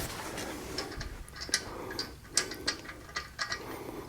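Irregular mechanical clicks and ticks, a ratchet-like clicking, heard during work on the wheel.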